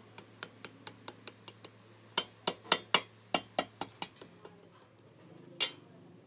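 Light metallic clinks and taps in quick succession, about four a second at first, then several louder strikes around the middle and one more near the end, over a faint steady low hum.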